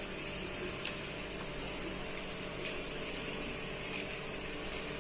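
Steady hiss of a steel pot of milk heating on a gas stove, with a few faint light clicks as chopped dry fruits are dropped in from a plastic plate.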